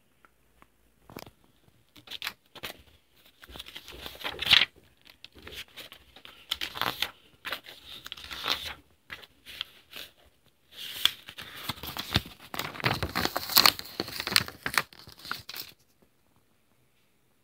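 Paper rustling and crinkling in irregular bursts as comic book pages are handled and turned. It stops shortly before the end.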